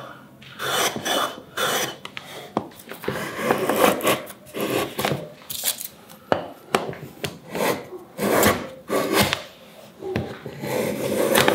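Small hand plane taking shavings off a beech board in a series of short, quick strokes, each a brief dry hiss of the blade cutting wood, with a short pause partway through.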